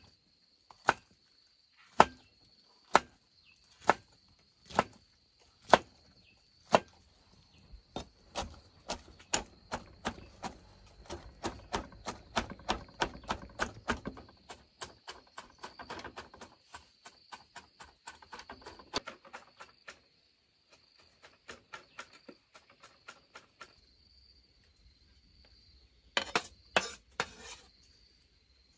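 Bamboo shoots being chopped with a blade: sharp strokes about one a second at first, then quicker, denser strokes for several seconds, then a few scattered ones and a quick short flurry near the end. A steady high insect drone, like crickets, runs underneath.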